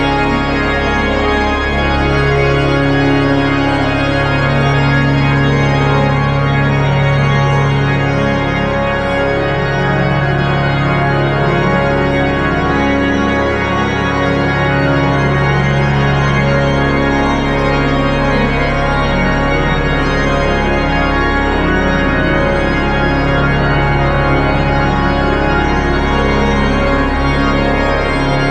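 Casavant pipe organ playing sustained chords over a deep pedal bass, the chords changing every few seconds, in a large cathedral nave.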